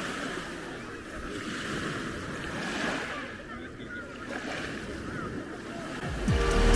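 Sea waves washing onto a pebble beach, swelling and ebbing in slow surges. Music fades in near the end.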